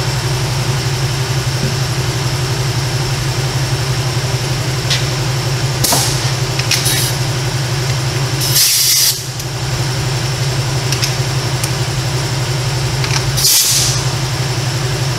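Steady low hum of a shop exhaust fan, with four short bursts of hiss about six, seven, nine and thirteen seconds in.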